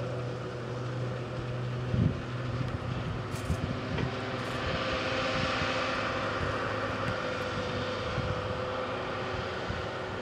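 Self-propelled grape harvester running steadily at a distance: a low, even engine hum with a hiss above it that swells in the middle. There is a soft knock about two seconds in.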